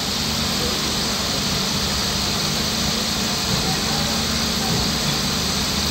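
Steady low hum of an idling engine, holding one pitch throughout.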